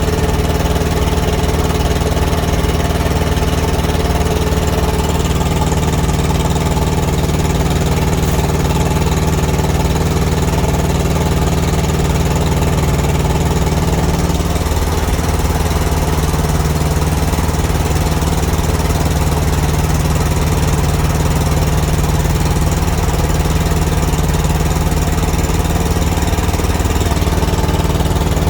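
Thermo King TriPac Evolution APU's small three-cylinder diesel engine running steadily, a little rough and loud from a small exhaust leak on its back side.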